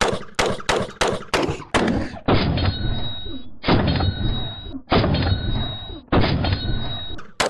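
AR-style rifle firing: a quick string of about seven shots, roughly three a second, then four slower shots about a second and a half apart, each trailing a lingering ring.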